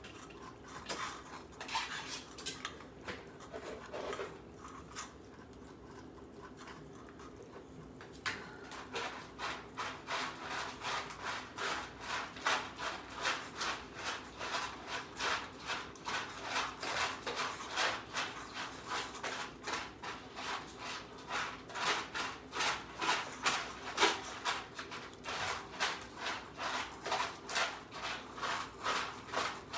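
Cats eating wet canned food close by, with a few light clicks at first. From about eight seconds in comes steady, rhythmic wet chewing and lapping at about three strokes a second.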